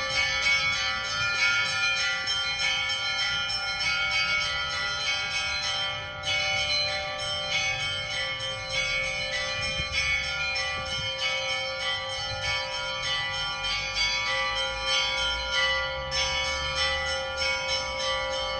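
Orthodox-style church bell ringing: small high bells struck in a rapid, dense pattern over the lasting hum of larger, deeper bells.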